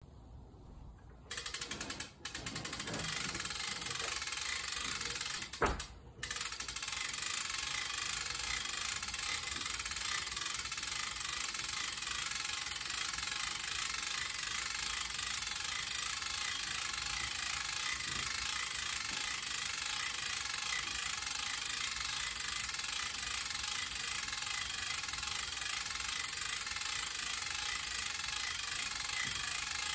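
Window crane's winch running steadily as its cable hoists a glazed window unit, starting about a second in, with a short break and a single sharp knock about six seconds in.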